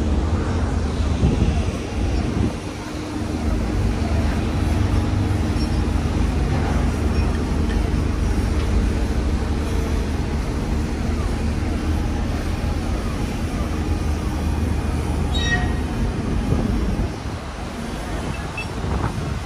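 Heavy cargo-handling machinery at a ship's berth running with a steady, low droning hum that eases a little near the end.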